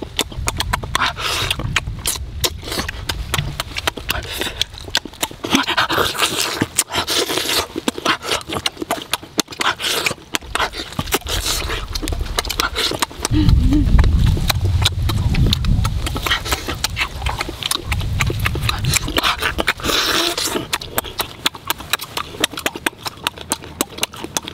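Close-up eating sounds: wet chewing, sucking and lip-smacking as roasted turtle meat and fresh chilies are eaten, a fast run of smacking clicks, with some low murmuring in the middle stretch.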